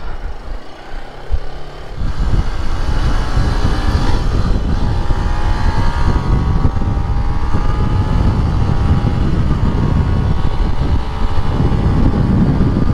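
Benelli BN 125's single-cylinder engine running at speed on the road, with a steady rush of wind and road noise. The sound jumps louder about two seconds in, as the ride moves onto the open road.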